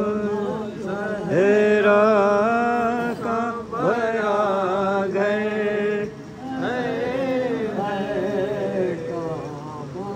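Voices chanting a noha, a Muharram lament, in long held notes that waver and slide in pitch, with short breaks about 3.5 and 6 seconds in.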